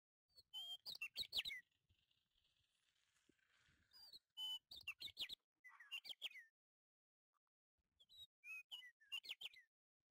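A bird chirping in four short bursts of quick, high notes that sweep downward, with pauses between the bursts.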